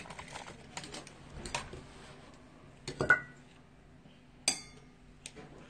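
A few separate clinks and clicks of small hard objects being handled. The loudest is a double click about three seconds in with a short ringing tone, and another sharp ringing click comes about a second and a half later.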